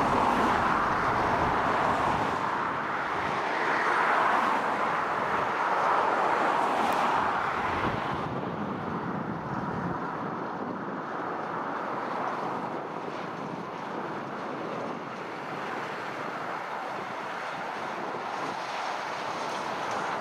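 Tractor and field machinery running, a steady mechanical rumble with no clear pitch that eases off somewhat after about eight seconds.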